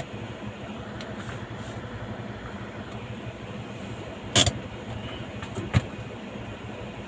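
Steady low rumble of a car heard from inside the cabin as it idles and creeps forward in a queue of traffic. Two sharp knocks, about a second and a half apart past the middle, stand out above it.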